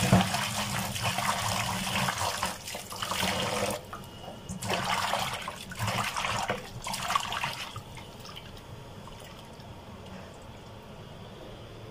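Water sloshing and splashing as small mola fish are rubbed and rinsed by hand in a steel bowl: continuous for about four seconds, then three short splashes, stopping about eight seconds in.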